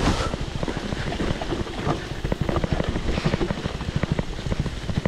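Wind buffeting the microphone over the rapid, irregular rattling and knocking of a mountain bike riding over a rough trail.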